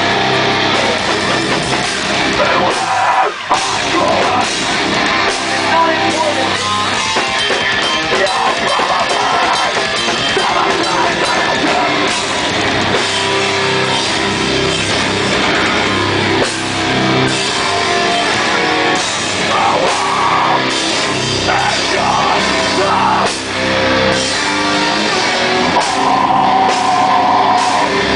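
A live band playing loud heavy rock, with drum kit, guitar and vocals.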